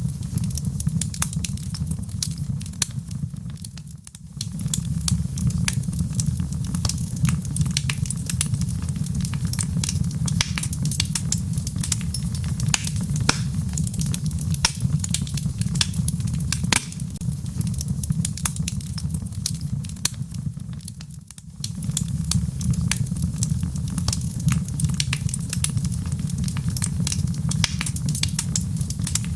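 Wood logs burning in a fireplace, crackling and popping steadily over a low rumble. The rumble fades briefly twice, about four seconds in and again about twenty-one seconds in.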